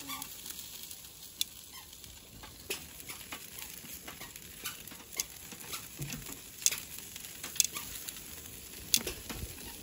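Meat and vegetables sizzling on a charcoal grill's wire grate, with scattered sharp clicks and pops as metal tongs turn the food.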